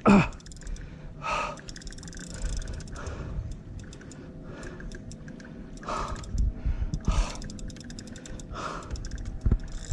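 A man breathing hard with several loud gasps, a few seconds apart, winded from a long, exhausting fight with a tarpon on the rod.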